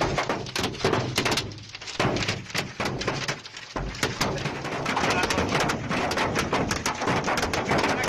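Hailstones pelting a car's windshield and body, heard from inside the car: a dense, rapid clatter of impacts.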